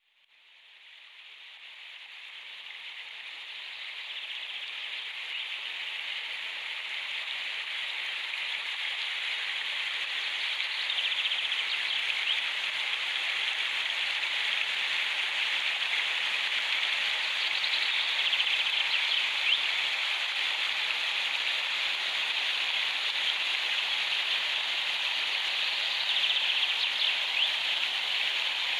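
Shallow stream rippling and running over rocks, a steady rushing that fades in over the first few seconds.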